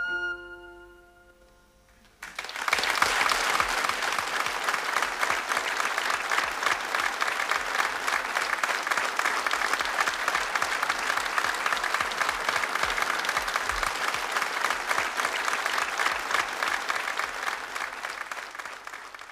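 The last note of a soprano recorder dies away, and after a short pause a studio audience breaks into steady applause about two seconds in, which fades out near the end.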